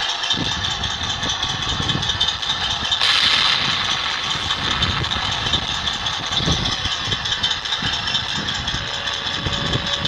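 A 1/16-scale RC tank sound card plays a tank engine running at idle, with a rattle, through its small speaker. About three seconds in, the sound gets brighter and louder.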